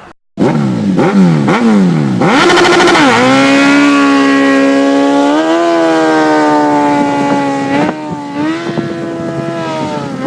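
Motorcycle engine revved hard: three quick rising-and-falling blips, then held at high revs for about five seconds, dropping briefly near eight seconds before rising again.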